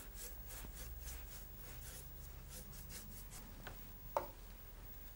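Brush swishing clean water across watercolour paper in quick, soft strokes, a dozen or so in a row, wetting the sky area for a wet-in-wet wash. A light click and then a sharper tap follow about four seconds in.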